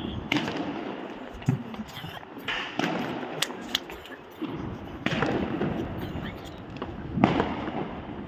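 Fireworks going off: a series of four or five sudden blasts roughly every two seconds, each followed by a fading crackle and hiss, with sharp pops in between.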